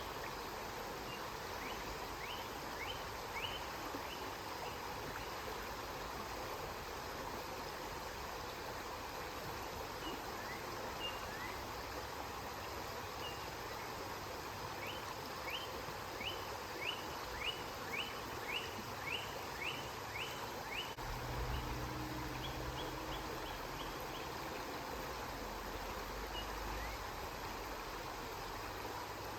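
River water flowing steadily. A bird repeats short rising chirps, a fast run of about a dozen in the middle, followed by a brief trill. A low rumble comes in about two-thirds of the way through.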